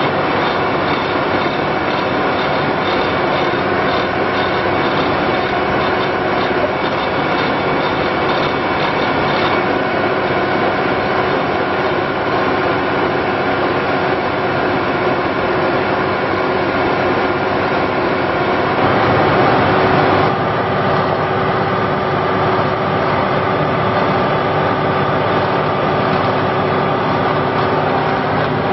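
Cummins diesel engine of an Ingersoll Rand Blaw-Knox PF-5510 asphalt paver running steadily. A quick, light ticking rides over it for about the first third, and the sound briefly swells louder about two-thirds of the way through.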